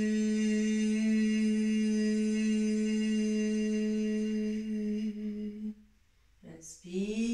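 A woman's voice holding one long, steady hummed note, which fades out about five to six seconds in. Near the end comes a short vocal sound that rises in pitch.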